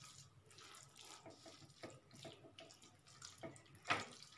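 Spatula stirring thick, creamy white-sauce pasta in a pan: soft, wet squelching and scraping strokes, with one louder scrape near the end.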